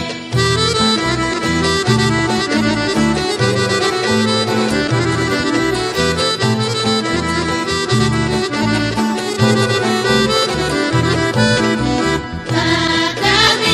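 Instrumental folk music: a sustained melody over a steady, pulsing bass beat, with a brief break near the end.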